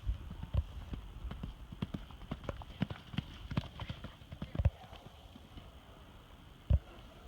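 Horse hooves clip-clopping: an irregular run of hoof strikes, with two louder thumps, one past the middle and one near the end.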